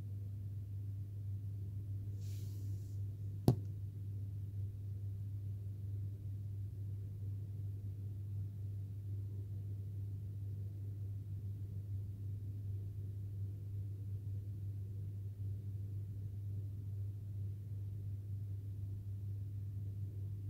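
Steady low hum of indoor room tone, with one sharp click about three and a half seconds in.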